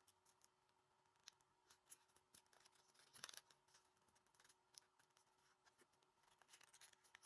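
Near silence with faint, scattered crackles of a paper square being folded and creased by hand, a small cluster about three seconds in and another near the end.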